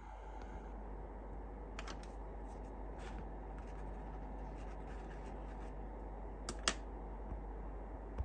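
Pen and paper being handled: a few faint clicks and light rubbing over a steady background hiss, with two clicks close together near the end.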